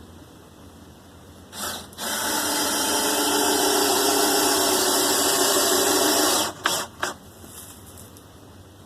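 Handheld electric power tool motor: a short blip, then running steadily for about four and a half seconds, then two quick blips as the trigger is tapped.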